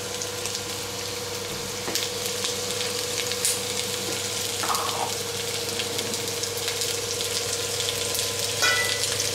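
Chopped onions sizzling steadily in hot oil in a stainless steel pan, with a steady low hum underneath.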